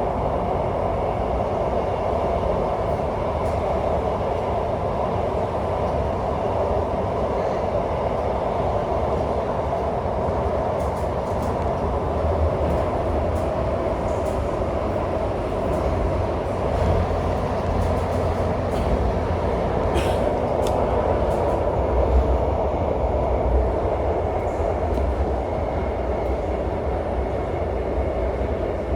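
Metro train running between stations, heard from inside the car: steady rumble and running noise of the wheels on the track, with a few faint clicks about halfway through.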